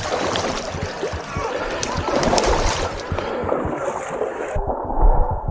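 Shallow spring water rushing and splashing over a rocky bed around someone wading through it. Near the end the sound suddenly turns muffled and dull.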